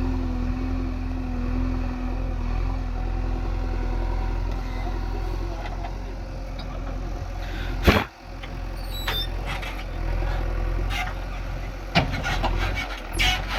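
JCB backhoe loader's diesel engine running steadily. A single sharp knock comes about eight seconds in, and a run of clanking knocks follows near the end.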